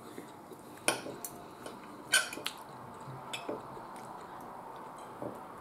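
Knife and fork clinking against a plate while a meat patty is cut, a few separate sharp clinks about a second apart, one ringing briefly.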